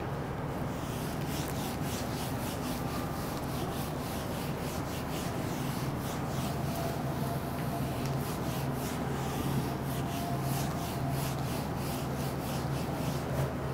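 Whiteboard eraser wiping across a whiteboard in quick back-and-forth strokes, a few swipes a second, clearing the board.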